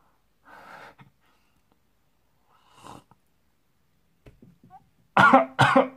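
A man drinking from a cup: faint breaths and small mouth clicks, then two loud, harsh breathy exhales near the end as he reacts to the drink's taste.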